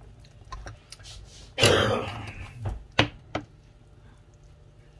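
A person clears their throat once, about a second and a half in, then a metal spoon clicks sharply against the pan twice.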